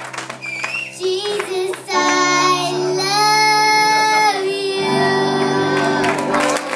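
A young girl singing into a microphone over a backing track, amplified through a PA in a hall, holding two long notes in the second half.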